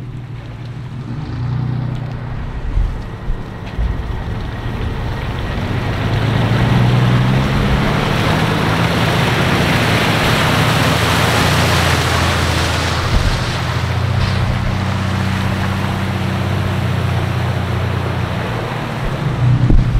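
An off-road 4x4's engine running under load, its revs rising and falling, under a loud rushing noise that builds to its loudest in the middle and eases off toward the end.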